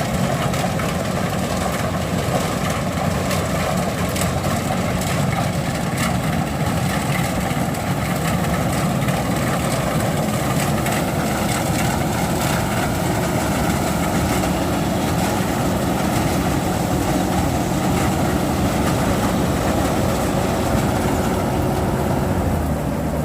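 Kubota DC93 combine harvester's diesel engine running steadily, with a dense, even mechanical clatter and no change in speed.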